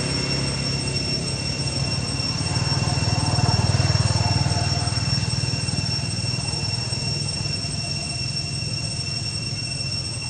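Steady, high-pitched insect drone, one unchanging whine, over a low rumble that swells about three to five seconds in and then eases.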